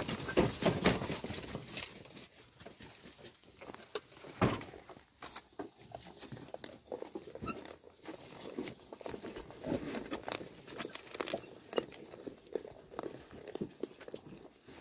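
Goats feeding from a trough of dry chopped straw: irregular rustling, crunching and soft clicks as they nose through and chew it.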